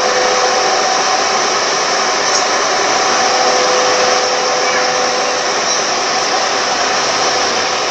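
Car air-conditioning blower fan running steadily: a continuous rushing whoosh with a faint steady whine underneath.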